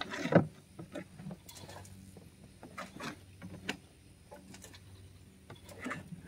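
Shovels scooping mushroom compost out of a pickup truck bed and tipping it into a wheelbarrow: irregular scrapes and soft thuds, the loudest about half a second in.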